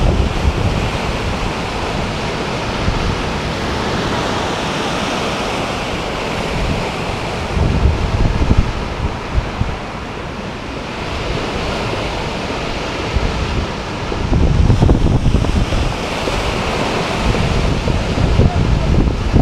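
Sea waves of an incoming tide breaking and washing in over a shingle beach as a continuous surf wash, with low rumbling surges now and then. Wind buffets the microphone.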